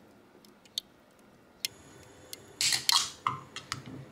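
A 12 fl oz Red Bull can being opened: a sharp click about a second and a half in, then the pop of the pull-tab and a brief loud hiss of carbonation escaping, followed by a few lighter clicks.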